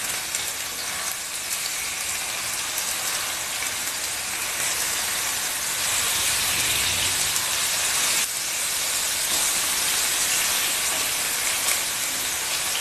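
Marinated katla fish steaks sizzling steadily in hot oil in a frying pan, getting a little louder about halfway through as the pieces are turned with a steel spatula. One short knock of the spatula on the pan about two-thirds of the way through.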